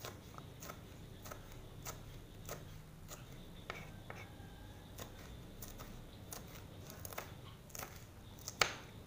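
Knife slicing green chillies on a plastic cutting board: a series of light knocks, about two a second, with one sharper knock near the end.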